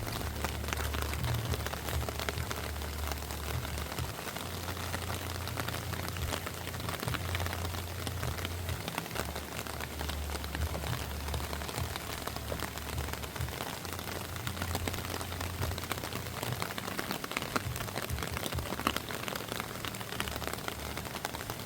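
Steady rush of a fast-flowing, flood-swollen river, an even watery hiss. A low rumble of wind on the microphone comes and goes over it.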